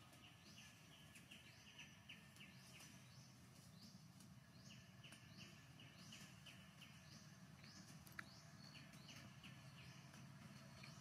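Near silence: faint outdoor ambience with a steady low hum and an even series of short, high chirps, about two or three a second, repeating throughout. A single faint click comes about eight seconds in.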